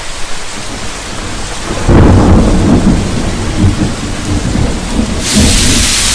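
Rain and thunder sound effect: steady rain with a deep thunder rumble coming in about two seconds in, then a loud hiss of television static near the end.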